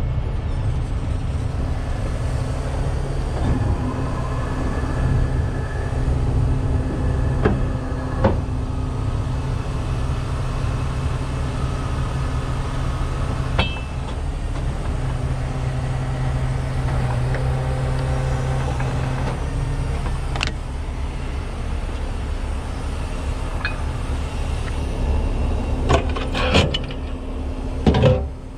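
Tow truck engine idling steadily, with a few sharp clicks and knocks near the end.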